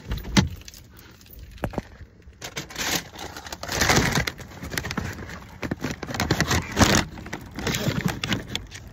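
Irregular rustling, scraping and small knocks of belongings being gathered up and handled right against the phone's microphone.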